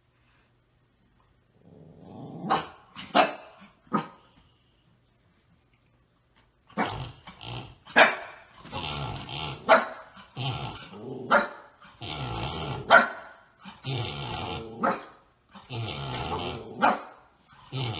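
Husky puppy barking and growling in a run of short, rough calls, about one a second after a quiet start, while pawing at a sleeping pig to get it to play.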